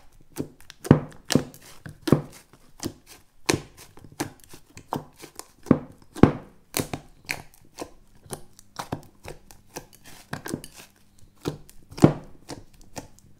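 Pink fluffy gummy slime being kneaded and squeezed by hand in a glass bowl, popping with irregular sharp clicks, a few every second, as trapped air bursts out of it.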